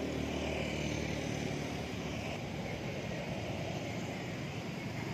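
An engine running with a steady hum that fades out about two seconds in, leaving a hiss of outdoor noise.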